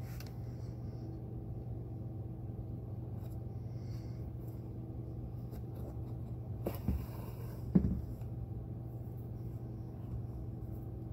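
Thread being pulled through a leather boot's moc-toe seam by hand during saddle stitching: faint scratching and rustling over a steady low hum. Two sharp knocks about a second apart come roughly seven seconds in, the second louder.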